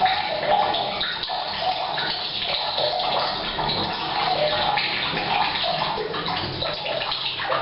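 Rain falling on the roof mixed with tap water pouring from a pipe into a water tank, the two blending into a steady, echoing rush in a bathroom.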